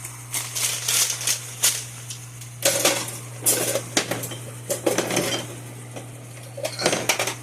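Kitchen clatter: a metal utensil clinking and scraping against a pan and dishes in a run of short, sharp knocks, over a steady low hum.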